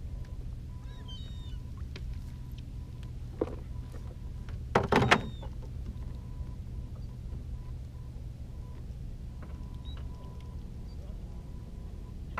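Small fishing boat's engine running at idle with a steady low hum, and a faint high tone coming and going. A short clatter of knocks about five seconds in, from the catch and line being handled against the boat.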